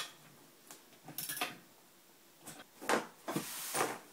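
A few brief knocks and clatters of tools and an aluminum angle bar being handled on a workbench, then a short rustle near the end.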